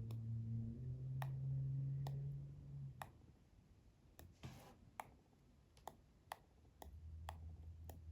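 iPhone 13 taptic engine vibrating in low buzzes. One buzz lasts until about three seconds in and shifts pitch partway through, and another starts near the end. Sharp single clicks fall between them, about ten in all.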